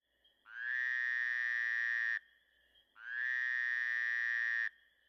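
An added sound effect: two identical buzzy tones, each held steady for about a second and a half, with a short gap between them.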